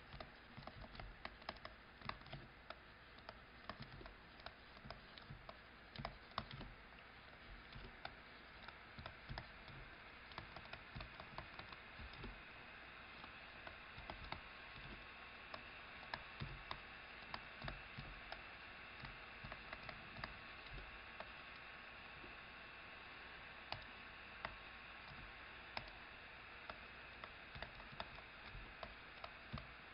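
Faint, irregular clicks and taps of a stylus writing by hand on a tablet screen, over a low steady hiss.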